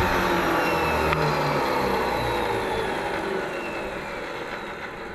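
Benchtop thickness planer switched off and spinning down, its motor and cutterhead whine falling steadily in pitch and fading.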